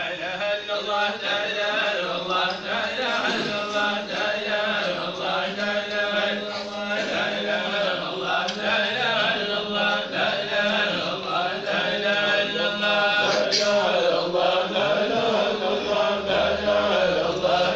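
Men's voices chanting a Sufi dhikr, a continuous melodic devotional recitation that carries on without pause.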